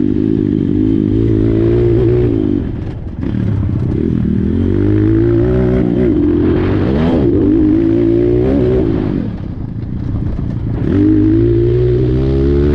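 Apollo RXF 150 pit bike's single-cylinder four-stroke engine being ridden hard. The revs climb and drop repeatedly, and the throttle is rolled off briefly about two and a half seconds in and again around ten seconds.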